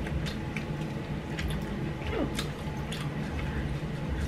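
Chewing and biting on sauce-covered chicken wings: scattered short wet clicks and smacks, with a faint brief vocal sound about two seconds in.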